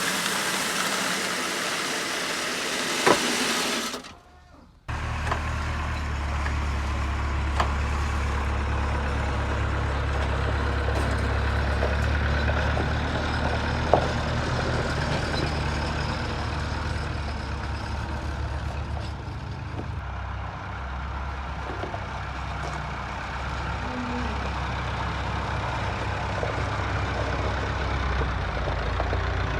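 A rushing hiss for the first few seconds, cut off abruptly. Then a heavy engine runs steadily, idling with a low hum and a few faint knocks.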